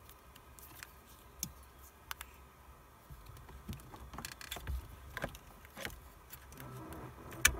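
Small clicks and rattles of hands handling a car radio head unit's metal chassis and its wiring and plug connectors while an FM/AM antenna booster is connected, with a sharp click near the end.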